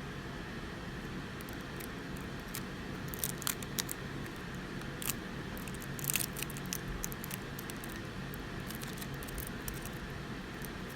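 Light scratching and scattered small clicks of a paper towel soaked in rubbing alcohol being rubbed over a phone circuit board, clustered about three seconds in and again about six seconds in, over a steady low fan hum.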